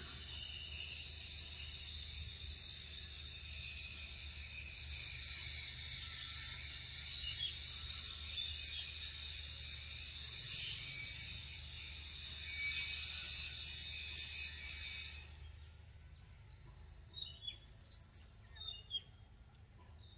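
Dense, high-pitched insect chorus buzzing steadily, then cutting off suddenly about three-quarters of the way through. A few short, sharp chirps follow near the end.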